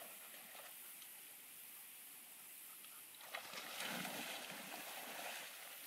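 Distant water splashing as a dog thrashes at the surface of a pond, grabbing a big fish. It starts about three seconds in, after faint quiet.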